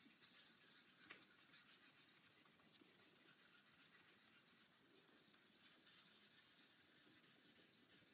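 Fine-grit wet sandpaper on a soft sanding pad rubbing over a waterborne lacquer guitar finish, a faint, steady hiss of continuous strokes.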